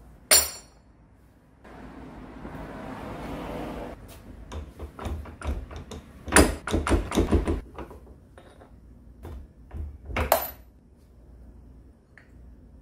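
Metal-on-metal clanks and knocks from a workshop press and gear puller pressing an angle grinder's spindle out of its bevel gear. A sharp ringing clank comes just after the start and another about ten seconds in; between them a couple of seconds of scraping rush and then a quick run of knocks, the loudest about six and a half seconds in.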